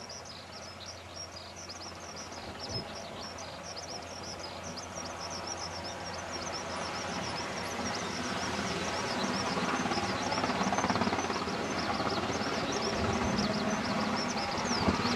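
UH-60 Black Hawk helicopter lifting off, its twin turboshaft engines and rotor growing steadily louder as it climbs into a low hover. Birds chirp rapidly over it.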